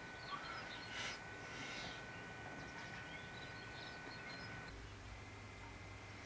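Small garden birds chirping faintly and intermittently, over a faint steady high whine that stops about three-quarters of the way in and gives way to a low hum.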